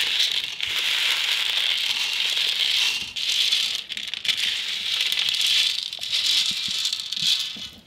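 Dry black beans pouring off a metal tray into a fine-mesh metal strainer: a steady, dense rattle of hard beans on metal, easing briefly a couple of times as the pour slows. The beans have been sorted and are being tipped into the strainer for rinsing.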